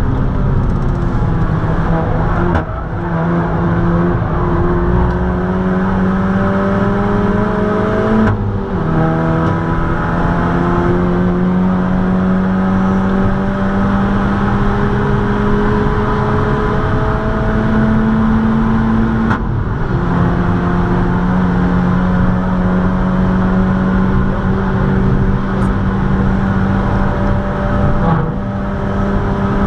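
Seat Leon Cupra 280 ST's turbocharged 2.0-litre four-cylinder with a custom exhaust, heard from inside the cabin under full-throttle acceleration at high speed. The engine note climbs steadily, and the pitch drops at upshifts about 3, 8 and 19 seconds in. Near the end the sound briefly eases.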